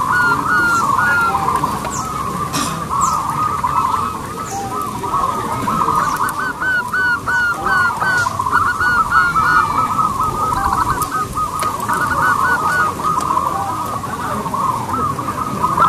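Zebra doves (perkutut) cooing in a dense, continuous run of short rippling notes, many overlapping at once, with a few fainter higher chirps above.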